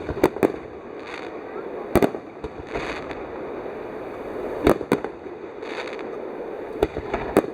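Aerial fireworks shells bursting: about seven sharp bangs spread over the few seconds, with short crackling patches between them.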